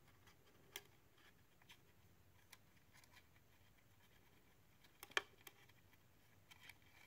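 Near silence with a few faint, short clicks and light rustles, the clearest a little after five seconds: small handling noises of thin wires and a plastic LED indicator light being fed through a hole in a plastic dash panel.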